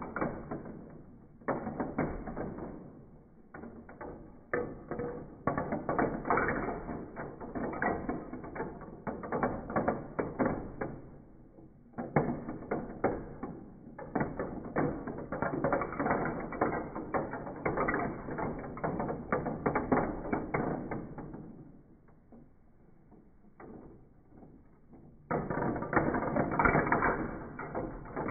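Metal marbles rolling and rattling down a plastic marble run, clattering through its tubes and spiral chutes and turning its plastic paddle wheels. The rattling comes in dense runs with short breaks, goes quieter about three-quarters of the way through, then picks up loudly near the end.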